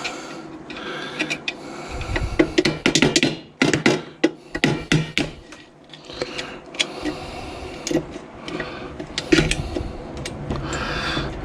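Metal parts of an autoclave clicking and clattering as it is worked apart with small hand tools, in irregular sharp knocks, busiest a few seconds in.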